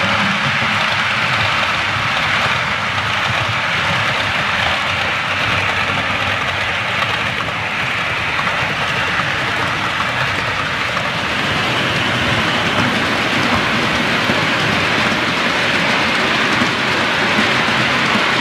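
OO-gauge model train rolling past on the layout's track, a rake of loaded coal hopper wagons: a steady rumble and hiss of small metal wheels running on the rails.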